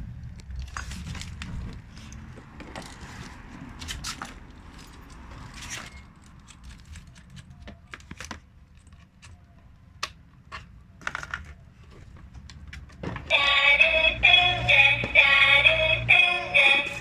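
Scattered clicks and light rattles, typical of small plastic toy parts being handled and fitted together, over a low hum. About 13 seconds in, loud music with a synthetic singing voice starts up.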